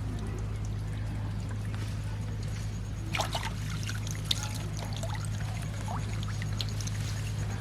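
Shallow water splashing and trickling, with a few sharper splashes about three and four seconds in, over a steady low hum.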